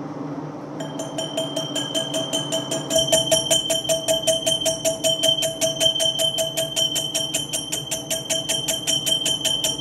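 Stainless impeller ringing like a bell as a carbide tool turns its welded-up seal ring in a Monarch lathe, over the lathe's steady hum. The ringing pulses rapidly, about eight beats a second, in step with the cut on the out-of-round ring. It starts about a second in and gets louder around three seconds in.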